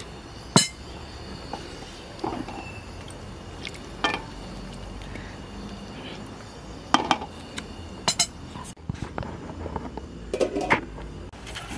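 Kitchenware clinking and knocking: utensils against pots and dishes, about six separate sharp clinks spread a second or two apart.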